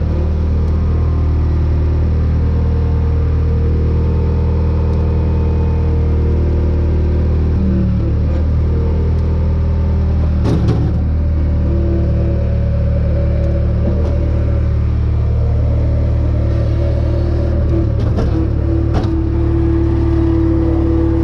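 Bobcat skid-steer loader's engine running steadily, with a few sharp knocks about ten seconds in and twice more near the end.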